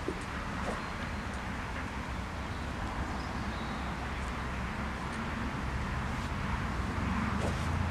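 Steady low outdoor rumble of wind and distant background noise, with a few faint high chirps.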